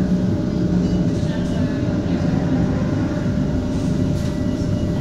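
HTM GTL8 articulated tram heard from inside as it runs along the track: a steady low rumble with a constant tone above it.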